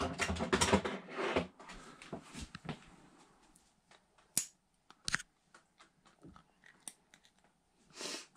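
Handling noise as a hooked walleye is held and the jig is worked out of its mouth: rustling and clattering, loudest in the first second and a half, then scattered small clicks and taps.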